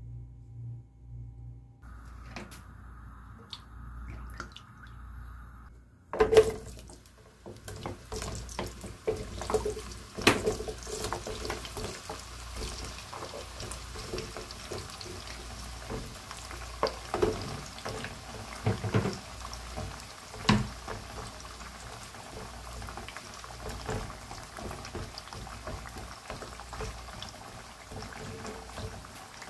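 Sweet potato slices frying in hot oil in a pot: a steady crackling sizzle that starts suddenly about six seconds in. A wooden spatula knocks and scrapes against the pot now and then as the slices are stirred.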